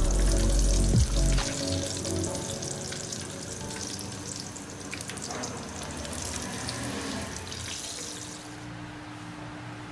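Stuffed karela (bitter gourds) frying in oil, a steady sizzle with crackles and spits that fades away about eight and a half seconds in.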